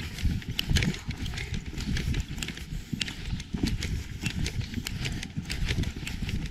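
Horse's hooves clip-clopping as it is ridden: quick, uneven clicks several times a second over a low rumble.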